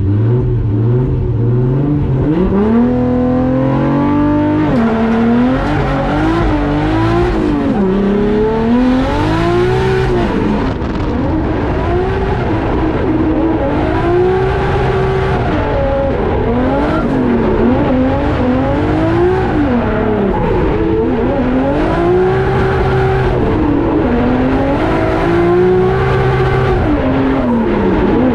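1JZ inline-six in a Nissan 240SX drift car, revving hard up and down over and over as it drifts, with tyre noise.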